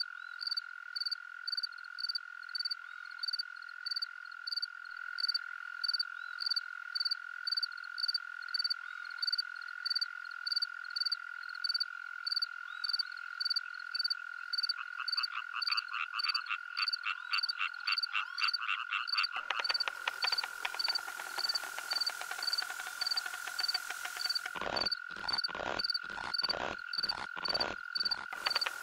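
Outdoor chorus of calling frogs and insects: a steady high drone under a regular chirp about one and a half times a second. A faster trill joins about halfway, a loud hissing buzz sets in about two-thirds through, and a run of heavy beats, about two a second, comes near the end.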